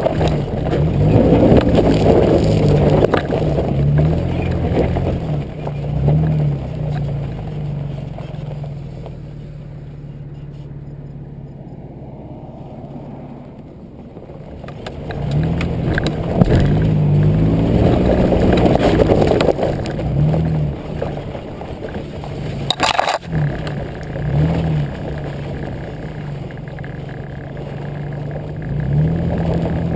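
2005 Nissan Xterra's 4.0-litre V6 engine and exhaust under way on a dirt track, heard close to the rear bumper. The engine revs up and eases off repeatedly and drops lower for several seconds in the middle. A single sharp knock comes a little over two-thirds of the way through.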